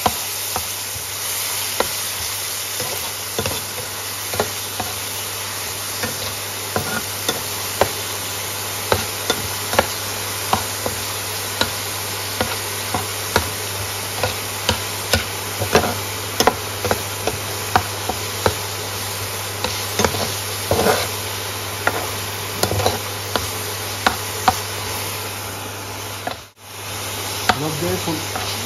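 Onion paste frying in hot oil in a pan: a steady sizzle, with frequent clicks and taps of a spatula stirring against the pan.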